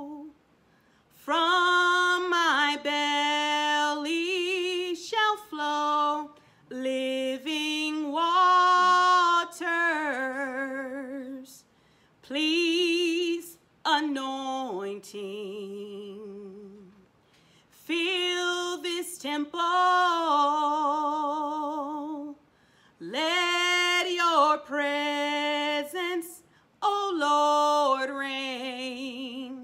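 A solo voice singing a slow worship song unaccompanied. It holds long notes with a wide vibrato, in phrases of a few seconds broken by short pauses, and dips lower about halfway through.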